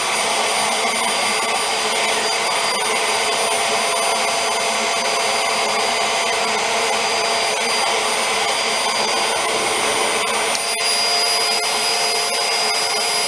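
Hoover Air Steerable upright vacuum running steadily: the rush of air with a high motor whine over it. About ten and a half seconds in there is a click, and the whine shifts slightly higher in pitch.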